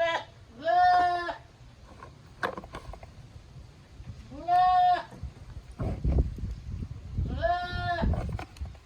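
Goats bleating: three separate, fairly loud bleats a few seconds apart, each about half a second to a second long, with the tail of another at the very start. From about six seconds in, low rustling and a few knocks sound under the bleats.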